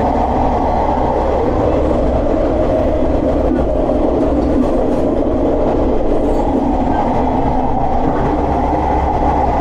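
Kawasemi Yamasemi diesel railcar running along the track, heard from inside the carriage: a loud, steady rumble of wheels and running gear with the engine's low hum beneath.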